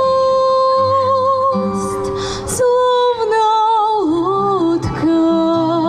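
A song: a singer holding long notes with vibrato over instrumental accompaniment.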